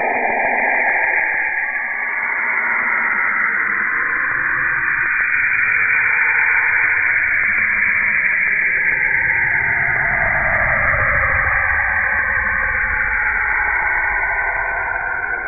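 Saturn's radio emissions as picked up by a spacecraft and turned into audible sound: a continuous hiss with broad bands of noise that slowly glide down and then back up in pitch.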